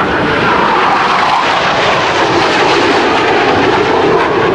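Blue Angels F/A-18 Hornet's twin General Electric F404 jet engines blasting past, a loud, steady rush of jet noise with a whine that drops in pitch during the first second as the jet goes by.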